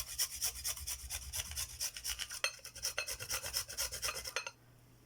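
A whole turnip, skin on, being grated on a hand grater: a quick, even run of grating strokes that stops about four and a half seconds in.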